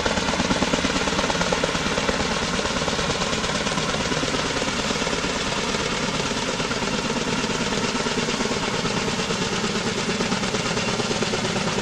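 Kaman K-MAX helicopter flying with a slung cargo load: its two intermeshing rotors give a fast, steady beat over the hiss of its turbine engine.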